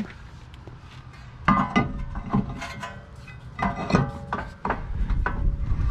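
A new rear brake rotor clanking and scraping against the hub studs and parking-brake shoes as it is slid onto the hub, in two bouts of knocks. The metal rings on briefly after each bout.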